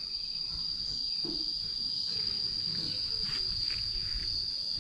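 Insects droning: one steady, unbroken high-pitched tone.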